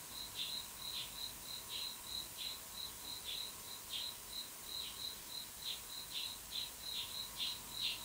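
Insect chirping in short high pulses, about three or four a second, over a faint steady hum.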